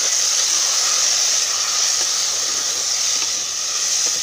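Chopped tomatoes and onions frying in hot oil in a clay pot, sizzling steadily as they sauté.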